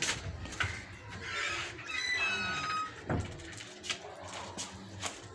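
Close-up eating sounds: wet mouth clicks and lip smacks while chewing rice eaten by hand. About two seconds in, a high tone falls in pitch for under a second.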